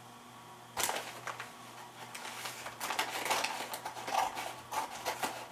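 Scissors cutting into a heavily taped mailer package: a run of irregular snips, crackles and crinkling of tape and wrapping that starts about a second in.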